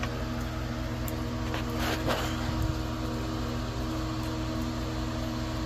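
A steady machine hum made of several even tones, with a few faint clicks about two seconds in.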